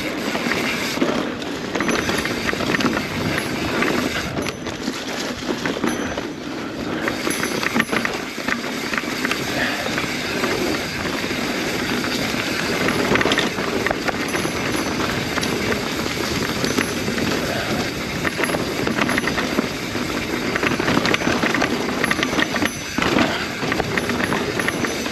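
Mountain bike descending a rough trail: a continuous clatter of tyres, chain and frame over rocks and roots, full of sharp knocks.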